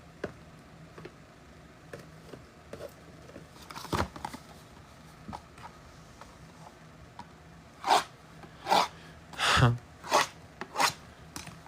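Trading-card packaging being handled and opened: short rubbing, scraping strokes of card and cardboard, one about 4 seconds in, then a run of about five close together near the end.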